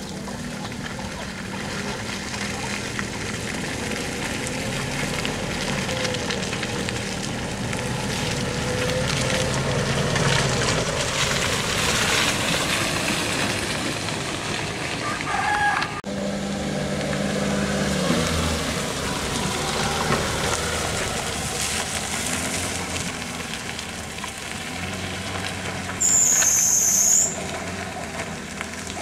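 Engine of a loaded dump truck labouring up a muddy dirt track, with other vehicles' engines behind it and the revs rising and falling. A brief loud hiss near the end.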